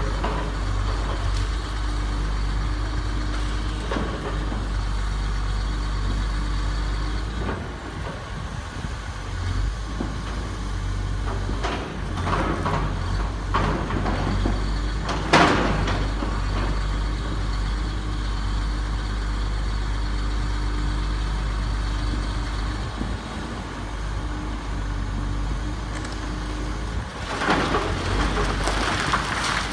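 Komatsu hydraulic excavator's diesel engine running steadily while the machine breaks up stone masonry. Stone and debris crash down several times around the middle, loudest about halfway. Near the end a longer rumble of collapsing wall follows.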